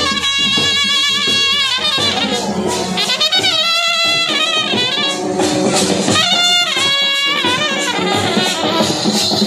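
Indian wedding brass band playing: horns play a wavering melody in three long phrases over drumming.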